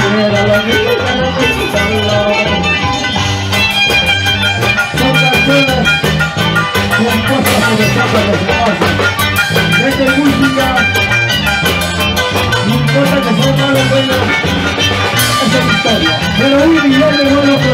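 Live band music led by violin, with Andean harp and bass guitar playing along.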